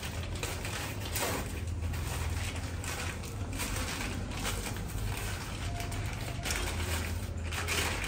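A studio strobe's light stand being handled and set up: repeated mechanical clicks and scraping of its parts, over a low steady hum.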